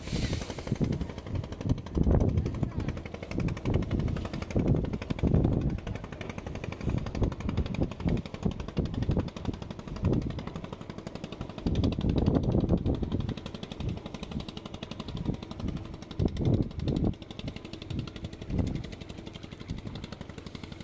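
Wind buffeting the phone's microphone in irregular gusts, with a faint steady hum underneath.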